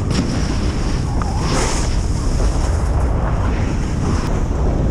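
Wind rushing over the microphone of a camera riding down a snow slope, with the steady hiss and rumble of sliding on snow. A brief louder hiss comes about a second and a half in.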